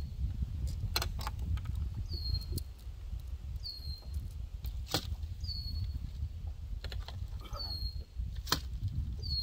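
Wind buffeting the microphone with a steady low rumble, while a bird repeats a short, high, falling call about every second and a half. A few sharp clicks and knocks come through now and then.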